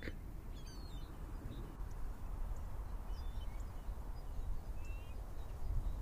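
Faint steady low outdoor background noise with a few brief, faint gull calls.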